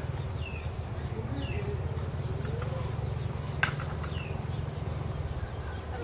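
Small birds giving scattered short chirps, with two sharp high notes about two and a half and three seconds in, over a steady low rumble.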